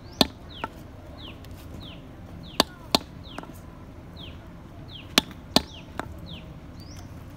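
Wooden mallet striking a metal punch held on leather over a wooden block, punching out a leather carving: sharp knocks in groups of two loud and one lighter, about every two and a half seconds. A high, short falling chirp repeats about twice a second behind them.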